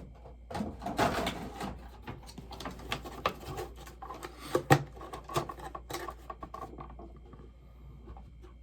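Handling noise from boxed bobbleheads and their packaging: a run of rustles, taps and clicks as boxes are moved about, with one sharper knock a little under halfway through, growing quieter near the end.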